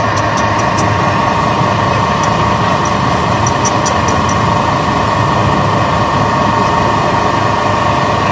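Electric-motor-driven flat die feed pellet mill running steadily, a loud continuous machine hum with a strong even tone. Scattered light ticks come through during the first half.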